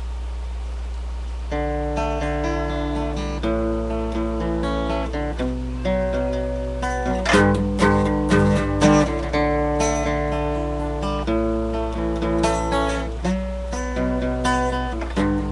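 Acoustic guitar song intro: after a second and a half of only a steady low hum, chords ring out note by note, then turn into strummed chords from about seven seconds in. A steady low electrical hum runs underneath.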